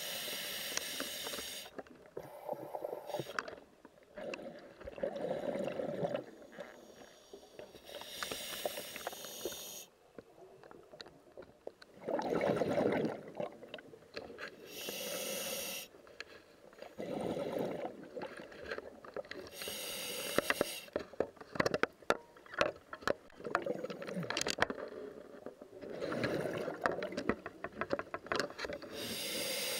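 Scuba diver breathing underwater through a regulator: repeated breaths every several seconds, each with a hissing pull and a bubbly burst of exhaled air.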